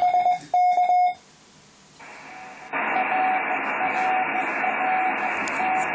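Recorded amateur-radio receiver audio of microwave aircraft-reflection contacts: a strong Morse code tone keyed in short and long beeps stops about a second in. After a brief pause, receiver hiss rises, with a much weaker Morse tone coming and going through it.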